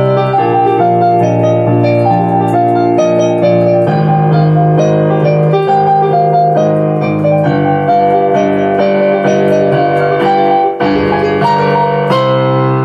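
Digital piano playing a solo piece: a melody of single notes over held low bass notes, with a short break near the end and then a chord struck and left ringing.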